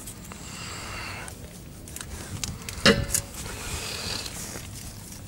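Quiet handling of metal parts on a tractor's hydraulic steering cylinder, with one sharp, briefly ringing metallic clink about three seconds in.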